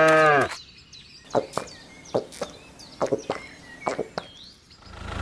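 A cow's long moo ends about half a second in. After it come a series of sharp, irregular knocks with small birds chirping, and an engine starts running near the end.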